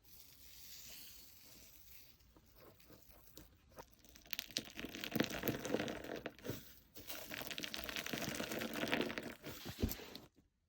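Slime being squished and stretched by hand: a soft rustle at first, then dense crackling and popping from about four seconds in that stops shortly before the end.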